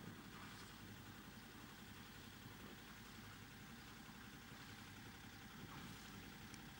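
Faint, steady running of a sailing yacht's engine at low revs while it motors slowly, an even low pulsing hum with a light hiss over it.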